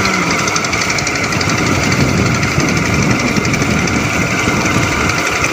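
Small vehicle engine running steadily with a rapid, even pulsing beat.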